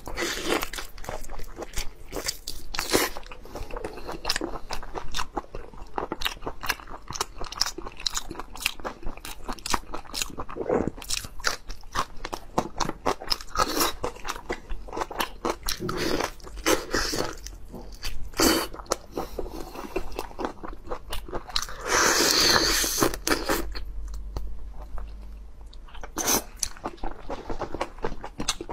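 Close-miked crunching, biting and chewing of a large raw marinated prawn, its shell cracking in many short sharp clicks, with one longer, noisier stretch about three-quarters through.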